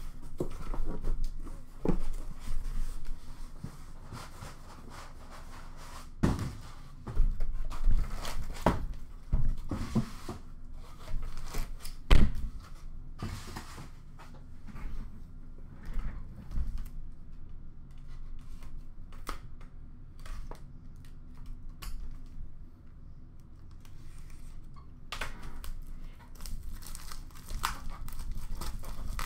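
Cardboard boxes handled by hand: scattered knocks and thuds as a shipping carton is opened and a sealed card box is lifted out and set down. Near the end comes a run of crinkling as the plastic shrink wrap is torn off the card box.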